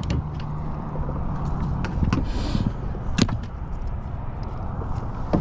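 Sharp knocks and thumps on a plastic kayak hull, a few seconds apart, with a short splash-like hiss about two seconds in, over steady wind and water noise, as a freshly landed black drum is handled in the kayak.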